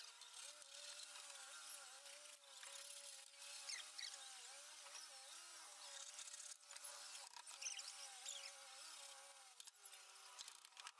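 Faint buzzing drone that keeps wavering slightly up and down in pitch, like a flying insect, with a few light knocks.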